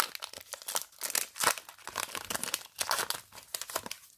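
Foil wrapper of a Pokémon trading card booster pack crinkling and tearing as it is opened by hand: a dense run of irregular crackles that dies away near the end.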